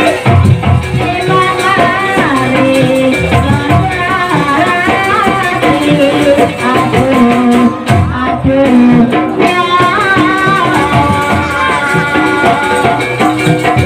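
Live jaranan ensemble playing: a melody that bends in pitch over drums and rattling percussion.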